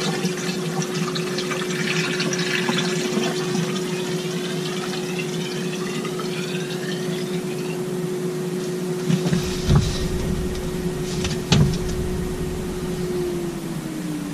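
Water being poured into a seacock's hose to fill it for a leak test, the pouring sound rising in pitch as the tube fills. A steady hum runs underneath and slides down in pitch near the end, and there are two thumps in the second half.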